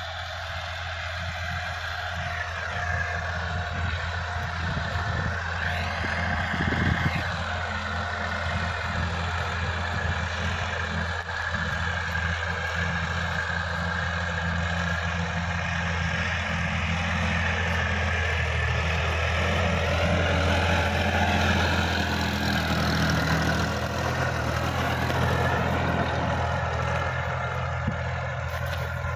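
Sonalika DI-50 RX tractor's diesel engine running steadily under load while pulling a rotary tiller through field soil, a low engine hum under a busier whirring, churning noise from the tiller. It grows somewhat louder past the middle as the tractor comes closer.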